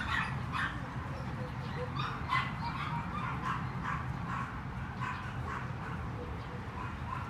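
A dog yipping in quick, high-pitched barks, two or three a second.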